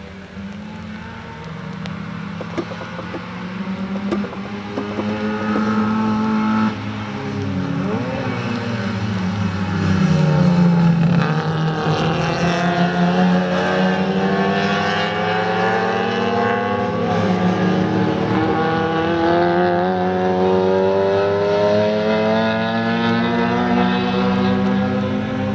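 Classic Mini race cars' four-cylinder engines at high revs as they pass, the pitch rising and falling with throttle and gear changes. The sound grows louder over the first ten seconds as a car comes close by.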